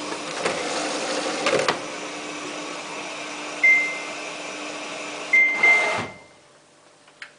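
Samsung WF8804RPA washing machine filling in service mode: a steady hiss of water running in through the inlet, with a few clicks. Three short high electronic beeps come from the control panel, and the water stops suddenly about six seconds in, leaving a faint hum.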